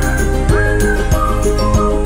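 Background music: a light melody of held notes over a steady beat.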